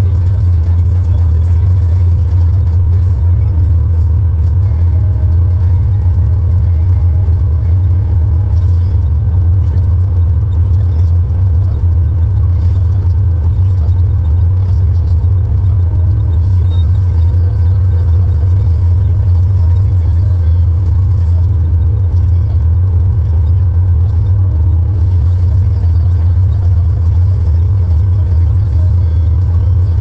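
Tractor engine running steadily, heard from inside the cab as a low, even drone while it pulls a square baler through the hay.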